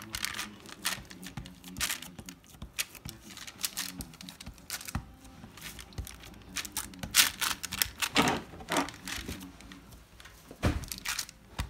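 Silicone spatula pressing and smoothing a sticky sesame-and-sugar chikki mixture spread on aluminium foil. It makes a run of irregular taps and clicks, with crinkling from the foil.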